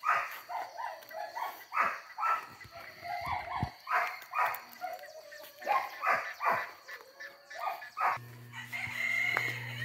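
Chickens calling in many short, quick bursts, one after another. A steady low hum comes in near the end.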